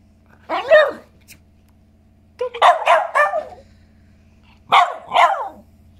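Puppy barking at a half lemon held out in front of it, in three bouts: one bark about half a second in, a quick run of barks around the middle, and two more near the end.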